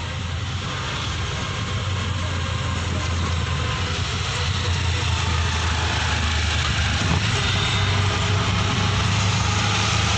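Auto-rickshaw engine running steadily with a low hum while the three-wheeler drives along, with road and wind noise from the open sides, growing slowly louder.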